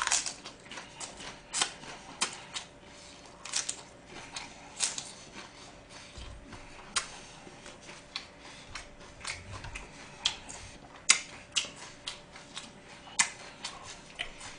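Close-up chewing of a napa cabbage and gwamegi wrap: irregular crisp crunches and wet mouth clicks, a few a second.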